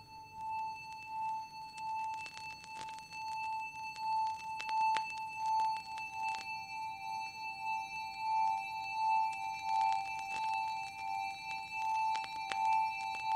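Minimal electronic music: a bell-like tone pulsing about one and a half times a second, joined about halfway through by a second, slightly lower pulsing tone, over thin steady high tones and scattered faint clicks.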